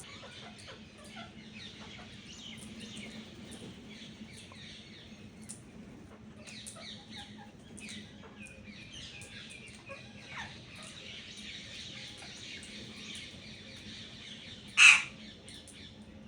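Many birds chirping and chattering at a feeding spot, with one loud, short call near the end, much louder than the rest.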